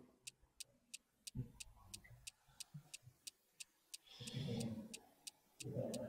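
Quiz countdown timer sound effect ticking steadily, about three sharp ticks a second.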